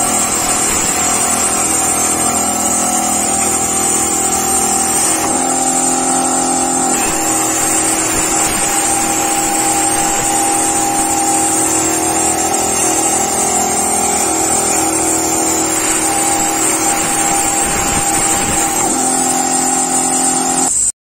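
CNC plasma cutting machine running: a steady loud hiss with a steady high tone, which strengthens and eases a few times.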